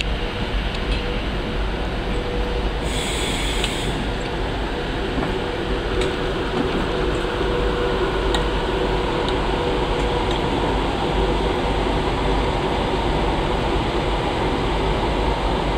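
Virgin Class 390 Pendolino electric train moving slowly past at close range: a steady hum with a constant whine from its traction equipment. A brief hiss cuts in about three seconds in.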